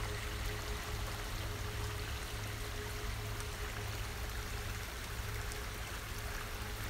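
Small forest creek running over logs and debris: a steady, even rush of flowing water.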